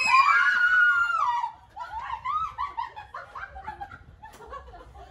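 A woman's high-pitched scream of fright, held and then cutting off about a second and a half in, followed by quick, breathy laughter.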